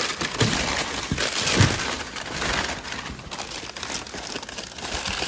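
Packing paper crinkling and rustling as a hand digs through a cardboard box, with a few soft knocks in the first two seconds.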